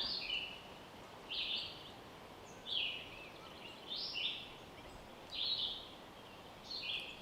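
A bird calling repeatedly, six short two-note calls, each stepping from higher to lower, about once every second and a half.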